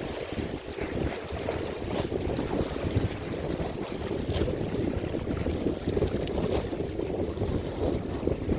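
Strong wind buffeting the microphone: a low, uneven rumble that rises and falls with the gusts.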